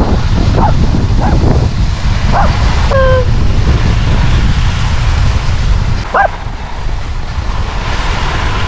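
A golden retriever–spaniel mix dog giving about five short, high whines, four in the first three seconds and one more about six seconds in. Heavy wind noise on the microphone runs underneath.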